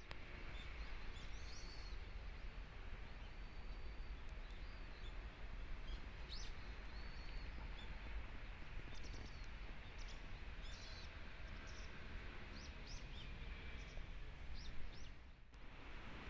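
Small birds chirping, many short high calls scattered throughout, over a steady background hiss and low rumble.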